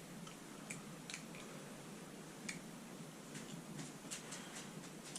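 Quiet room tone with about a dozen faint, irregular light clicks and ticks, like small objects being handled.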